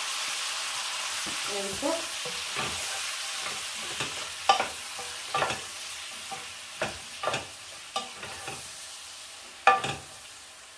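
Chopped tomatoes sizzling in hot oil in a pan while a wooden spoon stirs them, with about a dozen knocks and scrapes of the spoon against the pan. The sizzle slowly fades.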